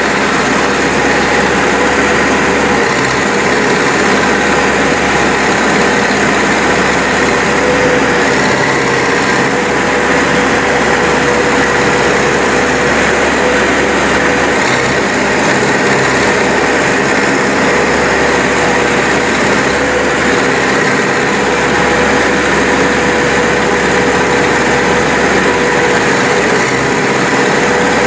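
Manitou Terex backhoe loader's diesel engine running steadily under a continuous whine, with no clear revving.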